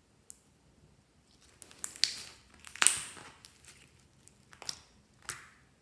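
Clear glitter slime squeezed and pressed by hand, giving a scatter of sharp clicks and short crackles, loudest about two to three seconds in.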